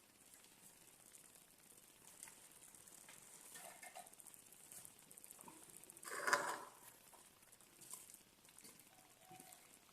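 Faint handling sounds from a covered cooking pot being opened: light clicks and rustling, with one louder scrape or clatter about six seconds in.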